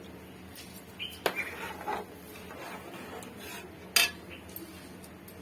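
A cooking spoon scraping and knocking against a metal pot while rice is spread in it. There are two sharp clinks, one about a second in and a louder one near four seconds, with scraping between.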